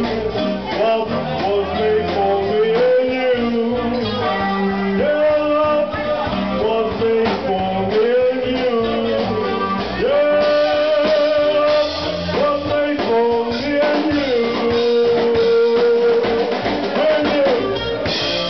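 Live cabaret band music with a man singing lead, his melody running through several long held notes, over a band with drums.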